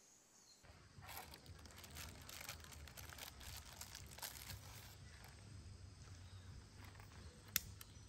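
Faint crinkly rustling, heaviest in the first few seconds, over a low steady rumble that sets in just after the start, with a sharp click near the end.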